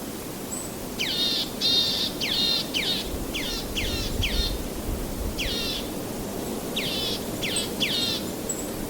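A songbird calling in quick runs of sharp, steeply falling notes: a burst of about eight from a second in, one more midway, and three more near the end. Beneath it runs a steady noisy wash of water or wind.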